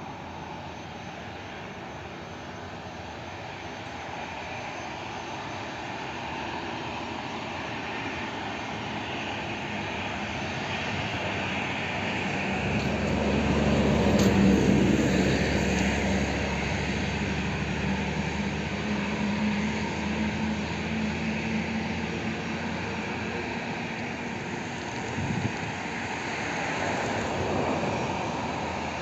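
Twin jet engines of an Airbus A320-family airliner running at taxi power, a steady whine and rumble. The sound grows louder toward the middle as the aircraft turns to face the listener, then settles into a steady, lower hum.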